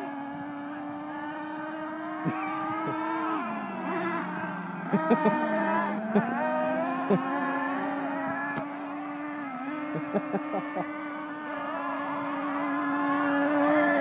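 Small nitro engines of several RC monster trucks running at high revs, one holding a steady pitch that drops twice and picks back up as the trucks slow and accelerate, with higher engine notes rising over the first few seconds. A few short clicks come about five and ten seconds in.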